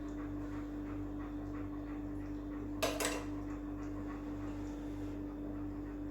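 German shepherd panting steadily, over a constant low electrical hum, with two short clicks close together about three seconds in.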